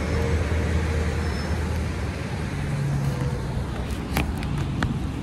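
Road traffic noise, with a vehicle's low engine hum fading away, heard through wind on the microphone. A few sharp clicks near the end.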